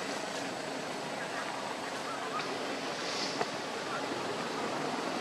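Steady outdoor background hiss with no distinct source, and a faint click about three and a half seconds in.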